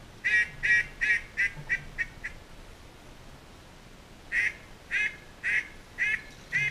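Hen-mallard quacks blown close by on a duck call: a run of seven quacks that fade and come quicker, then after a pause of about two seconds a string of loud, evenly spaced quacks about two a second.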